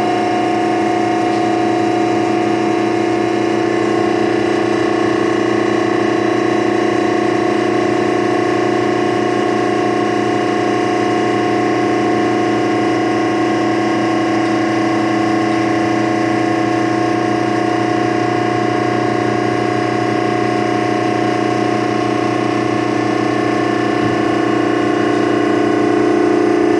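Baler machinery running steadily: a constant mechanical hum with a strong low drone, getting a little louder near the end.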